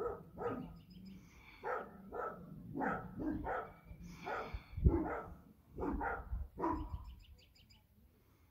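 Dogs barking at a cow in play, about ten sharp barks in irregular succession over some seven seconds, the loudest about five seconds in with a low thud under it. A few quick high bird chirps come in between.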